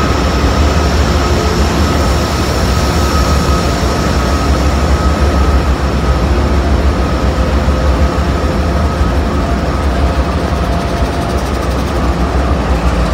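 Amtrak P42DC diesel locomotive's 16-cylinder engine idling: a steady, loud low rumble with a steady whine above it.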